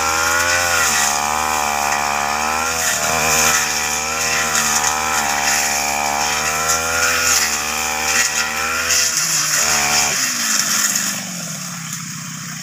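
Backpack brush cutter engine running at high revs while cutting grass and brush, its pitch dipping and recovering with the load. About ten seconds in it is throttled back and drops to a lower, quieter idle.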